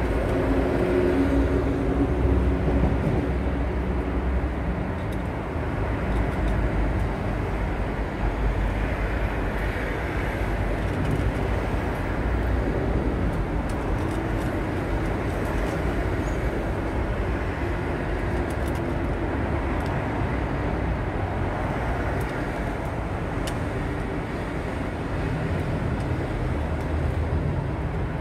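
Steady low mechanical rumble, with faint small clicks of a cat eating from a stainless-steel bowl.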